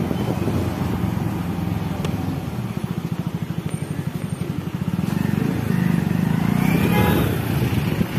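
Motorcycle engine running at low speed in slow street traffic, with a clear rapid putt-putt pulse through the middle. A brief higher-pitched sound cuts in about seven seconds in.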